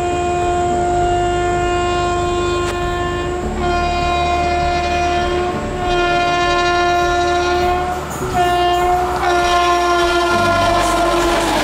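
Horn of an approaching train held in long blasts on one steady note, broken briefly about four times, over the low rumble of the train on the track.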